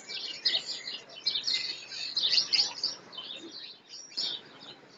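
Many small birds chirping rapidly in a dense, overlapping chorus.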